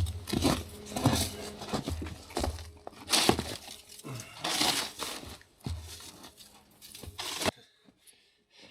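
Irregular crunching and crackling in snow, stopping abruptly near the end.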